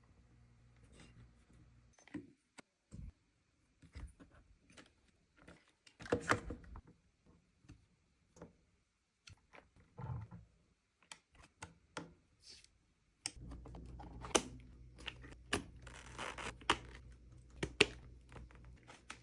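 Scattered light clicks, taps and scrapes of small parts being handled and fitted while reassembling a nitro RC car, with a low steady hum coming in about two-thirds through.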